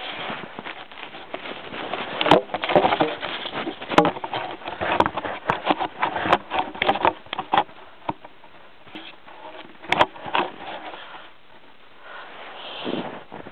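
Irregular clicks, taps and rustling, like close handling noise, with a few sharper clicks and a quieter stretch about eleven seconds in.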